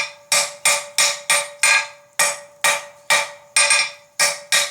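Hand hammer striking a flat steel bar on an anvil while drawing out a taper: quick, even blows, about three a second, each with a sharp metallic ring, over a steady ring from the anvil.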